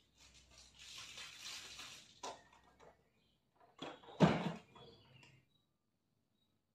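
Household handling noises as a broom is taken up: a couple of seconds of rustling, a light knock, then one loud clunk a little after four seconds in.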